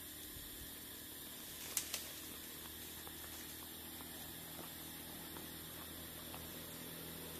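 A steady low hum over background noise, with two sharp clicks close together about two seconds in.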